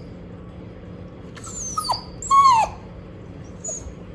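Shiba Inu dog giving two short, high whining cries, each bending up and then down in pitch, the second about a second after the first: the dog's complaining 'scolding' vocalisation.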